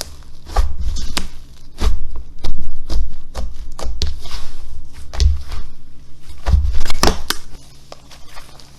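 Slime being squeezed and poked by hand, giving irregular sticky clicks and pops over soft low squelching thuds; it goes much quieter about three-quarters of the way through.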